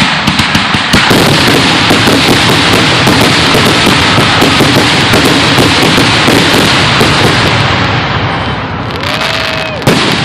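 Fireworks finale barrage: many shells bursting in rapid succession with crackle, running together into one continuous loud sound. It thins out near the end, and a single sharp bang comes just before it closes.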